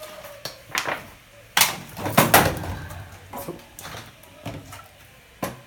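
A series of knocks and clunks as things are handled and set down on a wooden cutting board, the loudest cluster about one and a half to two and a half seconds in.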